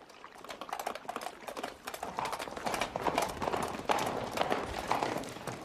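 Several horses galloping on a dirt road, a rapid clatter of hoofbeats that grows louder over the first few seconds as they approach.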